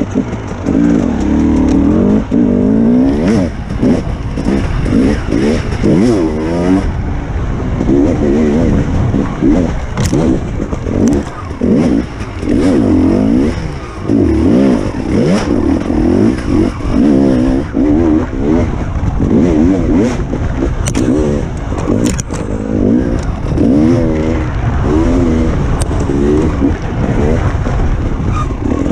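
Enduro dirt bike engine being ridden hard on a trail, revving up and dropping back again and again as the throttle is worked through the turns, with a few sharp clicks along the way.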